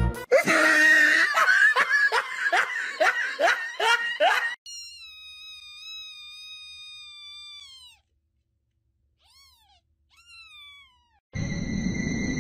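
Newborn kitten mewing: one long, high cry that falls in pitch at its end, then two short mews. Before it, about ten loud short cries come in quick succession, each falling in pitch; near the end a steady hiss with a high whine starts suddenly.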